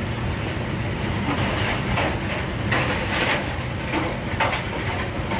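A cornmeal and flour mixture being stirred together, heard as a few rough scraping strokes over a steady low machinery hum.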